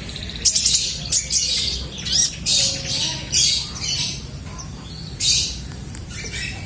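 Red-breasted 'kolibri ninja' sunbird calling: a rapid series of short, sharp, high-pitched squeaky notes, some sliding quickly in pitch.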